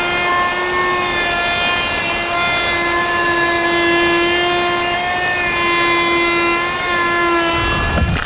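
Handheld router running at high speed with a steady high whine, routing the floor opening for a flush-mount vent to the edge of a template. Near the end a rougher noise joins the whine.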